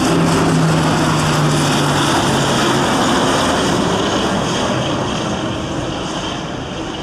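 C-2 Greyhound carrier transport landing, its two Allison T56 turboprop engines giving a loud propeller drone with a low steady hum through the first three seconds, the noise fading gradually.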